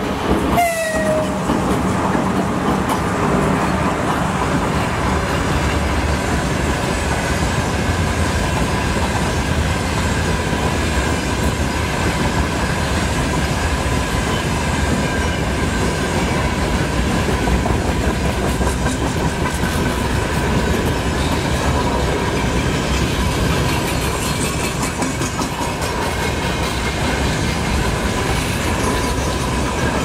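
Freight train hauled by a 2ES10 'Granit' electric locomotive passing close by. A horn note drops in pitch and stops within the first second, and then the wagons roll past with a steady rumble, clickety-clack of the wheels over rail joints and a faint steady high ring.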